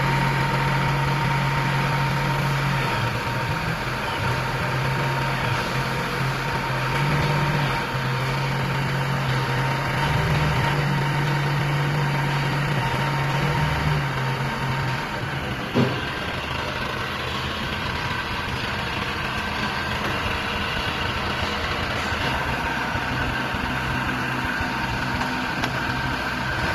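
Engine of an HQ15-10C mini backhoe loader running steadily, its low note wavering slightly in places. A single sharp knock comes about 16 seconds in.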